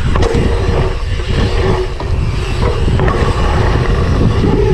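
Wind buffeting the helmet-camera microphone and mountain bike tyres rolling over packed dirt at speed, a loud, uneven low rumble.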